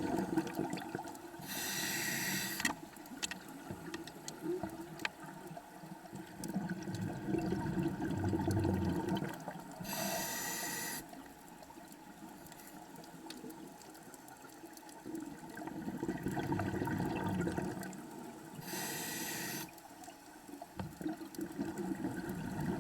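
Scuba diver breathing through a regulator underwater: a short hiss of inhalation about every eight seconds, three times, with a low bubbling rumble of exhaled bubbles between the breaths.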